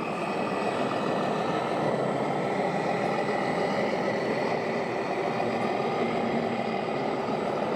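Steady engine-like running from 1/14-scale RC trucks and construction models, with a faint steady whine over a busy hum.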